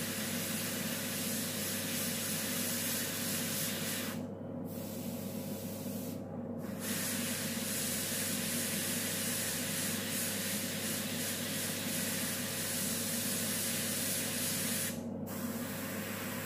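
Gravity-feed airbrush spraying paint in a steady hiss, cut off briefly three times, about four, six and fifteen seconds in, with a steady low hum beneath.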